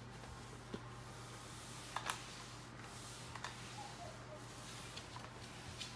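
A few scattered clicks and taps from a puppy's claws on a hard plank floor, the loudest pair about two seconds in, over a faint steady hum.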